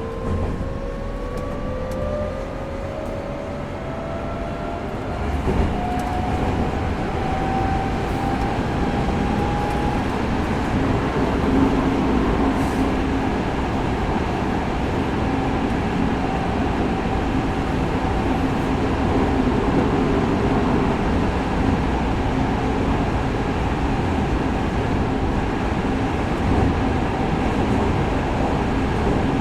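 Tokyo Metro 05 series subway car with Mitsubishi IGBT-VVVF inverter traction motors accelerating. The inverter-motor whine rises steadily in pitch over the first ten seconds or so, then fades into the steady rumble of the train running on the rails, heard from inside the car.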